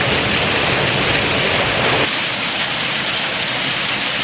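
Steady rush of falling water, like a waterfall, with the deepest part of the rumble dropping away about two seconds in.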